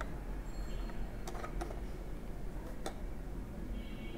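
A few light, uneven clicks and taps of a small toy car being handled, over a faint low hum.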